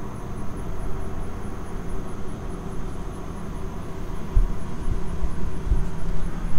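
Steady low outdoor rumble, with two dull low thumps, one about four and a half seconds in and one near six seconds.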